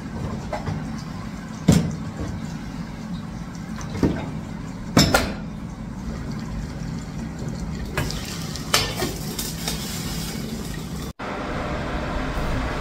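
Kitchen clatter during food preparation: dishes and cutlery clink and knock several times over a steady low background hum. The background changes abruptly near the end.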